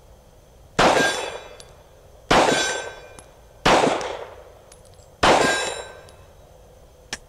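Four 9mm pistol shots from a Glock 17, about a second and a half apart, each followed by a long ringing decay. Three of the four hit a steel plate at about 40 yards and set it clanging. A short sharp click comes near the end.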